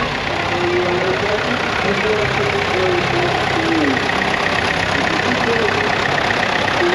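Nuffield tractor engine running steadily at a slow idle-like pace.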